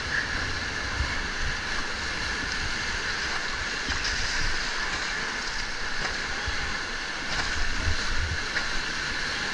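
Whitewater rapids rushing and churning around an inflatable raft: a steady wash of water, with low rumbles of buffeting on the microphone.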